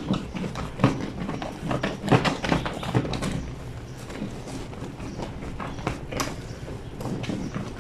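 A wet blanket being scrubbed and worked by hand on a granite laundry sink's washboard, with irregular wet slaps and knocks.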